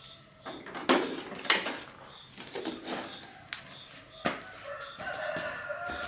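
Chickens clucking, with a rooster crowing one long call about five seconds in. There are a couple of sharp knocks about a second in.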